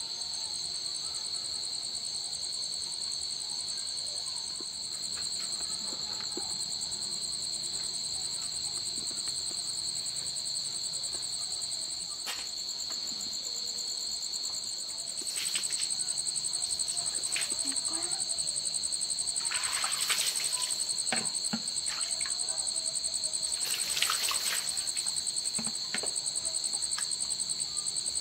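Insects trilling steadily at two high pitches, growing louder about halfway through, with scattered light clicks and knocks in the second half.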